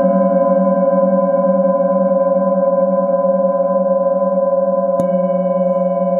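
Hand-held metal singing bowl ringing with a steady, wavering hum and several higher overtones. A light mallet tap about five seconds in renews the ring.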